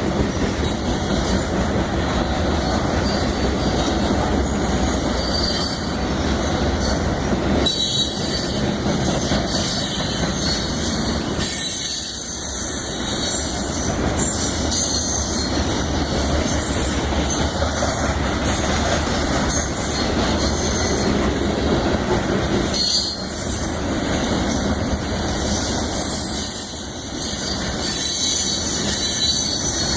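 Cars of a loaded grain train rolling past: steady noise of steel wheels on the rail, with high-pitched wheel squeals coming and going and a short louder knock about twelve seconds in.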